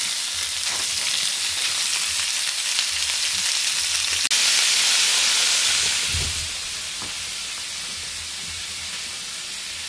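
Raw beef stew meat sizzling as it sears in a very hot carbon steel pan greased with beef tallow. The hiss swells about four seconds in, then settles lower about two seconds later.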